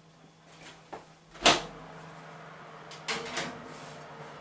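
Kitchen oven door opened with a loud knock about a second and a half in, then a steady hum and two lighter knocks as the pizza goes onto the oven shelf.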